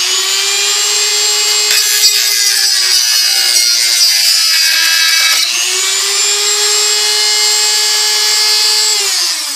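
Dremel rotary tool spinning at high speed with a steady whine. Between about three and five seconds in its pitch sags and wavers as it bites into the grille under load, then it runs clean again and winds down near the end.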